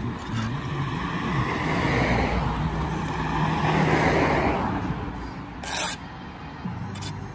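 Road traffic going by, with a vehicle engine humming close by; it fades out about five seconds in. Near the end comes a short, sharp scrape, as of a steel trowel on a clay tile.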